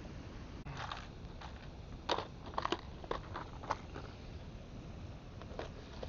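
Steady rushing noise of river water, with an irregular cluster of sharp crunching clicks from about a second to four seconds in and one more near the end.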